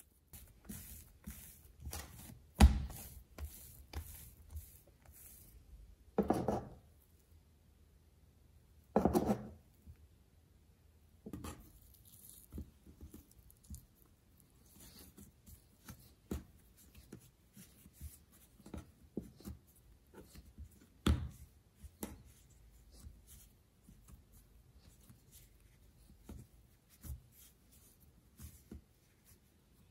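Hands working soft brioche dough on a wooden table: tearing off pieces and rolling them into balls, with soft taps and rubbing throughout and a few louder thuds as the dough is pressed or set down.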